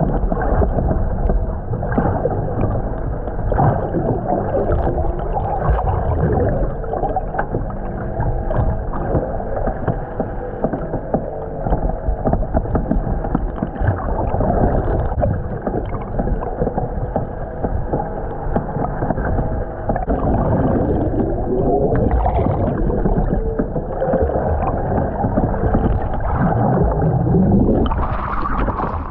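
Muffled underwater rushing and bubbling water beside a moving boat's hull, with the boat's engine droning through it; the drone wavers in pitch about two-thirds of the way through. Near the end the camera breaks the surface and the sound opens up into brighter splashing and wind.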